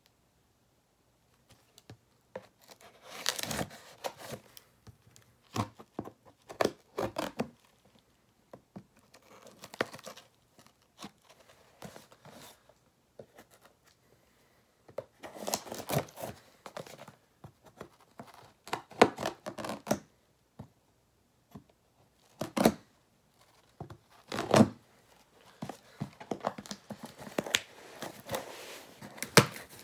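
A shipping box being opened by hand: packaging tearing and crinkling in irregular bursts, with scattered knocks and short pauses.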